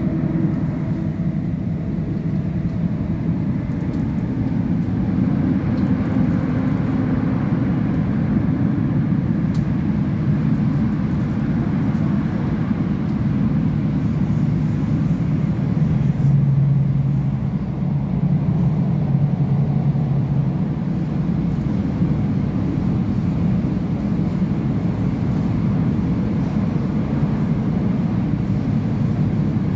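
Running noise of a Bombardier Class 345 electric train heard inside the carriage: a steady low rumble of wheels on rail with low hums, one of which grows stronger for a few seconds past the middle.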